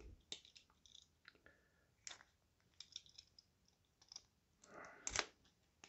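Faint scattered clicks and light scraping from a metal craft knife being worked against the plastic wrap of a card pack, with a slightly louder scrape about five seconds in.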